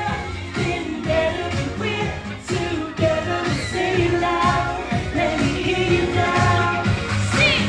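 Upbeat pop song with singing over a steady beat.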